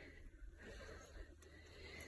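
Near silence: faint background noise with a low rumble and one light click.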